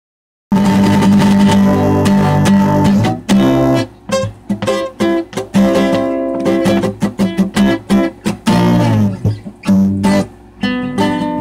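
Acoustic guitar strummed in chords, starting abruptly about half a second in.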